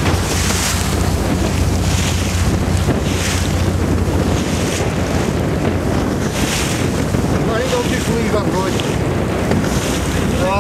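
Strong wind buffeting the microphone over the rush of choppy sea waves, with a surge of wash every second or so.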